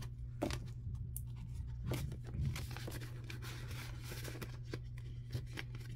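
Paper bills and a clear plastic A6 cash binder being handled: soft rustling and a few light clicks over a steady low background hum.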